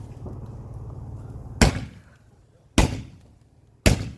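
Fireworks going off: three sharp, loud bangs about a second apart, starting about a second and a half in. A low, steady rumble comes before them.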